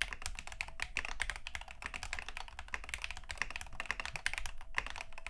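Fast, continuous typing on a Drunkdeer M75 keyboard with its proprietary magnetic contactless switches: a dense stream of keystroke clacks.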